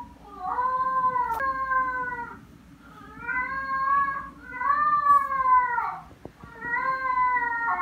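Pembroke Welsh Corgi puppy crying: about four long cries in a row, each rising then falling in pitch. It is distress at being left alone for the first time.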